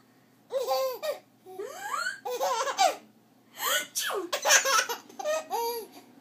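Baby laughing hard in four or five high-pitched bursts, with short breaths between them.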